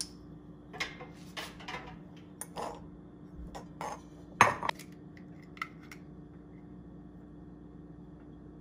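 Eggs and glass mixing bowls being handled: a scatter of light clinks and taps over a few seconds, with a sharper double knock about four and a half seconds in.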